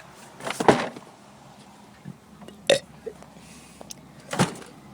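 A person forcing out three short burps: the first and loudest about half a second in, a sharper one a little before the middle, and a last one near the end. They are forced, weak burps from someone who says they can't really do it.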